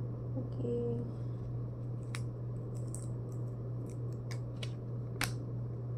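Sharp clicks and snaps of a cardboard SIM card holder being handled and picked at, about seven in the second half, the loudest near the end, over a steady low hum.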